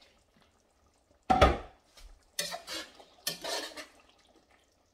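A metal pot lid clanks down once, loudly, about a second in. A spoon then stirs and scrapes twice through the chicken and chickpea curry in the stainless steel pot.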